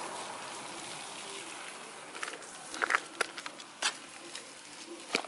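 Soil being poured into a plastic basin: a soft hiss that fades over the first two seconds, then scattered scrapes and sharp taps, the sharpest near the end.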